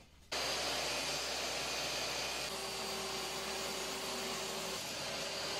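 Table saw running steadily while ripping a strip of solid American white oak along the fence; the sound starts abruptly, and a steady note joins it for about two seconds in the middle.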